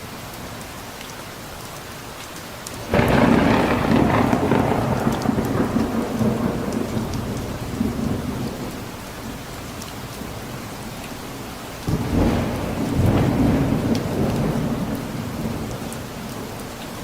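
Steady rain falling, with two claps of thunder that break in suddenly about three seconds in and again about twelve seconds in, each rumbling and fading over several seconds.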